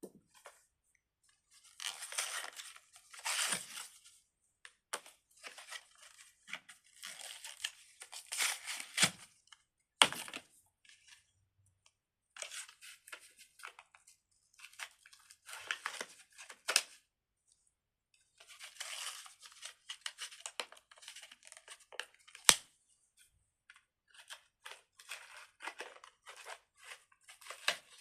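Crinkly plastic being handled: irregular bursts of crinkling and tearing, a second or so each, with a few sharp clicks.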